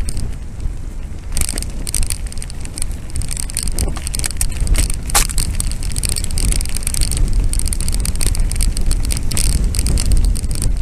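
Mountain bike riding a rough dirt track: tyres crunching over the ground and the bike rattling in quick clicks, with wind buffeting the microphone. One sharper click comes about five seconds in.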